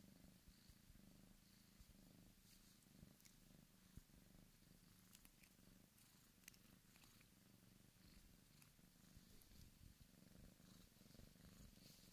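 Bengal kitten purring softly and steadily while being stroked and playing with a hand, with a few faint clicks.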